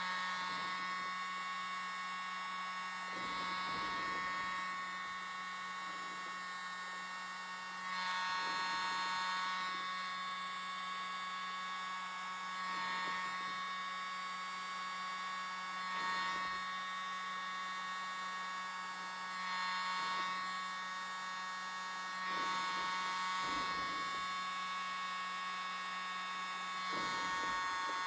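Tiny handheld electric mini blower running with a steady buzzing whine, swelling louder every few seconds as it is pushed in closer. Its air is blowing wet acrylic pour paint outward into bloom petals.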